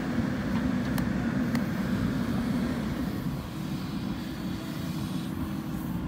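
JCB backhoe loader's diesel engine running steadily, with a couple of light clicks about a second in; the engine eases off slightly about halfway through and settles into a steadier note.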